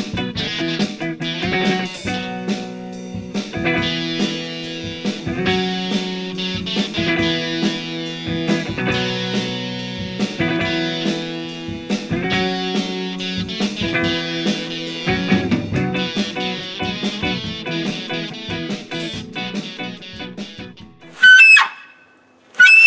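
Background guitar music with drums that fades out near the end, followed by two loud, short, high squeals that swoop in pitch, which sound like an elk call.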